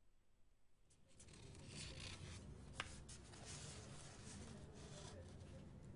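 Near silence for about a second, then faint rustling and room noise with a low hum, and one short click a little under three seconds in.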